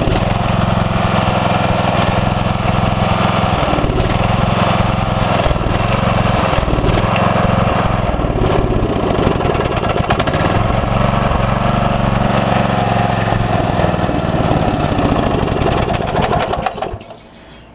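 Briggs & Stratton 9 hp single-cylinder engine running, its speed sagging and recovering several times as it starves of fuel, then dying about 17 seconds in once the carburetor has run out of gas.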